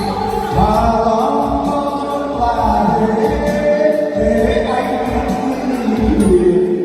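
Music: a Vietnamese pop ballad with a gliding melody line over a steady low beat.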